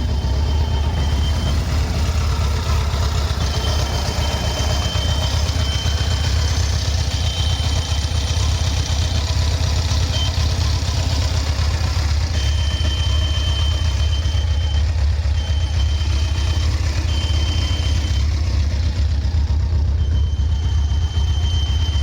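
Honda CBR1100XX Super Blackbird's inline-four engine idling warm, with a thin high whistle that comes and goes several times over the steady idle. The whistle only appears with the engine warm and went away once the water pump was replaced, the sign of a failing water pump.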